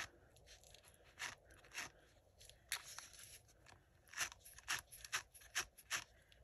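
A brush combing out strands of yarn to fluff them into fur: about ten faint, short scratchy strokes at uneven intervals, a little stronger in the second half.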